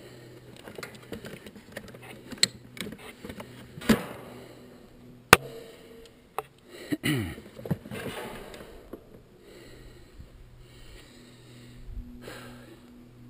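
Scattered clicks, knocks and rattles of tools and gear being handled against the metal of a windmill head, the sharpest knock about five seconds in, with a short sound falling in pitch around seven seconds in. It is quieter in the last few seconds.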